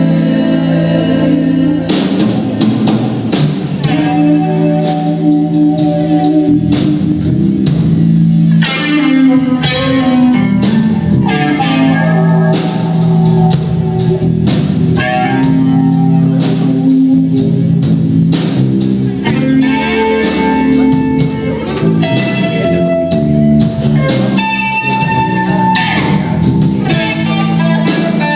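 Blues band playing live: electric guitar, bass and drum kit in an instrumental passage.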